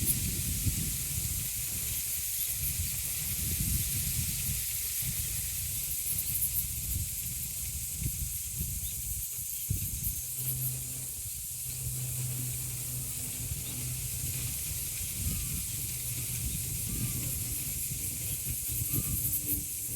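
Wind gusting over the microphone and through birch leaves, over a steady high drone of cicadas. About halfway through, a low steady hum comes in underneath.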